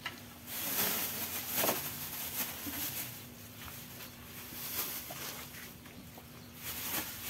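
Thin plastic bag rustling and crinkling as live catfish are dropped into it by hand from a wet basin, with a few short wet slaps and clicks among the rustling.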